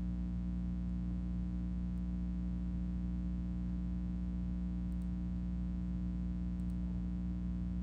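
Steady electrical mains hum, a low buzz with faint hiss and nothing else happening.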